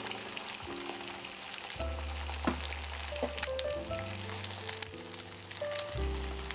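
Potato, onion and egg mixture sizzling and crackling in hot olive oil in a frying pan as it is poured in.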